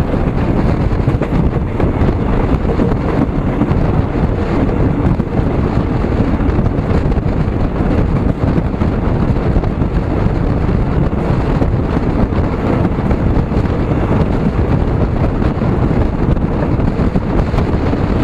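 Steady wind rumble buffeting the microphone, a loud low noise with no distinct events.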